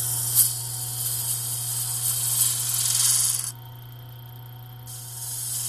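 Grizzly wood lathe running with a steady motor hum while a flat scraper cuts the inside of a spinning horn cup, a loud hissing scrape. The scrape stops about three and a half seconds in as the tool comes off the cut and starts again about a second later.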